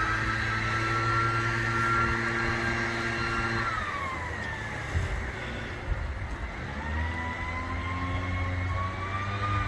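Electric motor whine of a Worx Landroid robotic lawn mower, starting abruptly. The pitch holds steady, drops about four seconds in, then climbs again near the end as the motor load changes.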